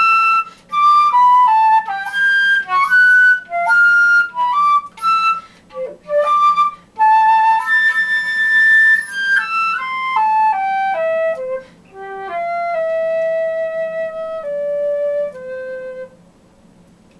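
Solo concert flute playing a slow melody, phrase by phrase with short breaks for breath, ending on three long held notes that step down in pitch and then stop shortly before the end.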